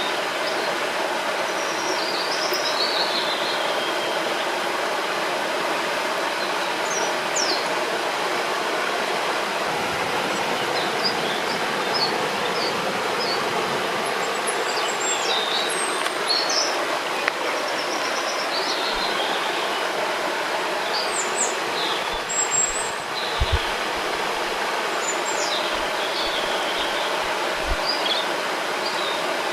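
A river rushing steadily over rocks, with small birds chirping and singing throughout in short high notes.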